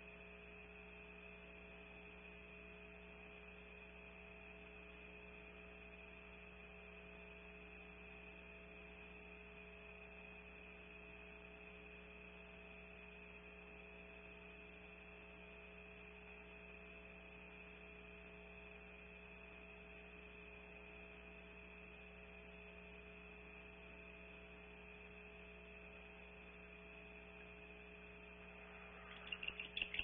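Steady electrical hum from the nest-cam's audio line, otherwise near silence. About a second before the end, a rapid pulsing high-pitched owl call starts up and grows louder.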